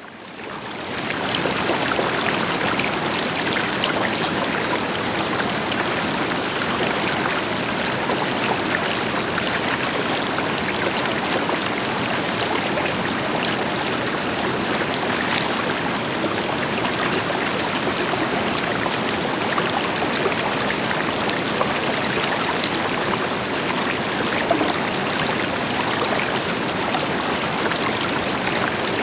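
River water flowing in a steady rush, with the deeper rush of a distant waterfall underneath. It fades in over the first second or so.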